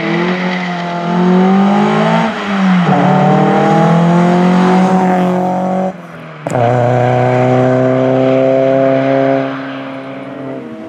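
Toyota Celica rally car's engine accelerating hard through the gears as it passes. The pitch climbs and drops at shifts about two and a half and six seconds in, with a sharp crack just after the second shift, and the note fades as the car pulls away near the end.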